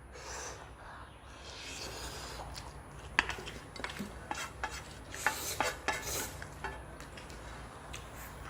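Eating utensils clinking and scraping against a bowl of noodles: soft stirring at first, then scattered sharp clicks from about three seconds in.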